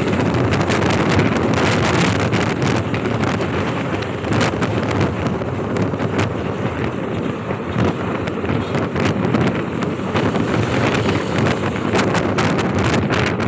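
Wind buffeting the microphone of a camera on a moving motorcycle, a steady rushing with frequent gusty crackles, over the hum of the motorcycle and the road.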